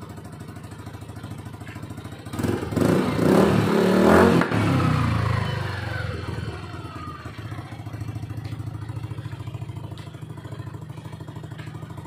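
Yamaha NMAX scooter's single-cylinder four-stroke engine running through a Yoshimura carbon-fibre slip-on exhaust. It idles, is revved hard for about two seconds, then the revs fall away back to a steady idle.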